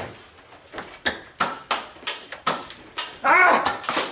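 A run of sharp clicks and snaps, typical of foam-dart blasters firing and darts striking, then a loud wavering vocal cry about three seconds in.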